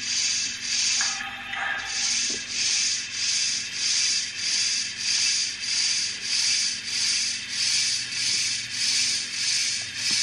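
Sound-decoder steam chuff from a model American steam locomotive: evenly spaced hissing chuffs, about one and a half a second, in a steady rhythm.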